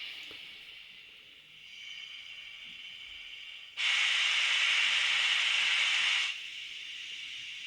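Steam hissing from the sound decoder speaker of a model BR18 steam locomotive as it stands: a steady hiss, with a much louder blast of steam about four seconds in that lasts about two and a half seconds and cuts off suddenly. These are the standing-locomotive sounds the ESU LokSound V5 decoder plays at random.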